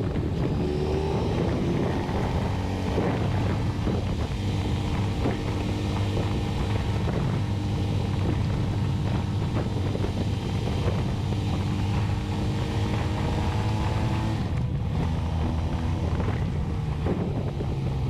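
Motorcycle engine running steadily at cruising speed, with wind buffeting the microphone. The engine eases off briefly about three-quarters of the way through, then pulls on again.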